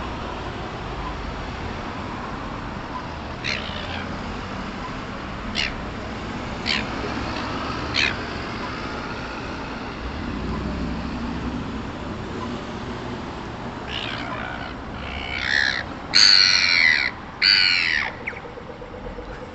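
Gulls calling: a few short, sharp squawks spread through the first half, then a loud burst of harsh squawking near the end, over a steady low background rumble.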